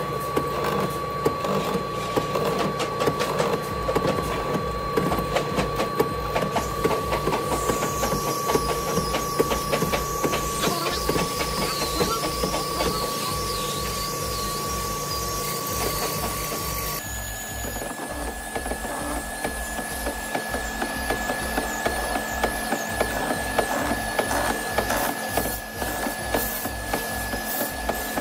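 Old vertical boring machine running, its spinning bit cutting a mortise slot into a solid-wood beam. A steady motor whine sits over a low rhythmic pulse about twice a second. About halfway through, the whine jumps to a higher pitch.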